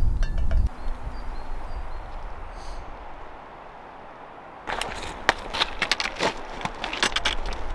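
A low rumble that cuts off under a second in. A few seconds later comes a quick run of irregular sharp clinks and clatter of plates and cutlery.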